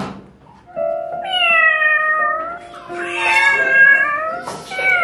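A domestic cat meowing: two long drawn-out meows, with a third starting near the end, over background music with steady held notes.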